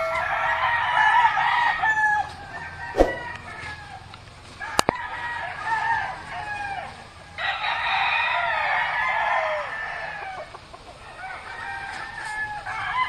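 Many roosters and hens calling at once, crowing and clucking in two stretches of overlapping calls with a quieter spell between. Two sharp knocks come about three and five seconds in.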